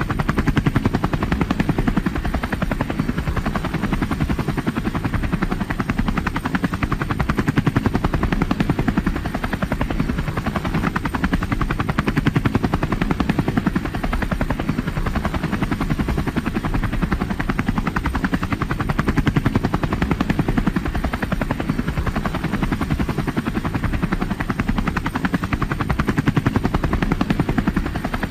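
Helicopter in flight: the rotor's fast, even beat over a steady engine drone, swelling and easing slightly every few seconds.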